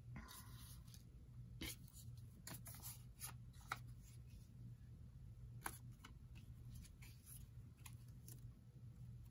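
Faint rustling and small taps of paper and card pieces being picked up and set down on a paper file folder, a short rustle at the start and scattered light clicks after, over a low steady hum.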